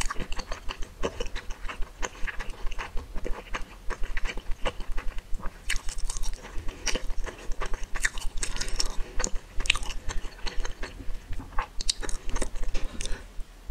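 Eating sounds of spicy instant noodles and enoki mushrooms: wet chewing with many quick irregular clicks and smacks, busier in a few stretches.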